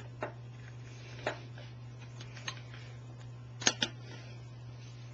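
A few scattered clicks and knocks from handling an airsoft Thompson submachine gun, two of them close together near the end, over a steady low hum.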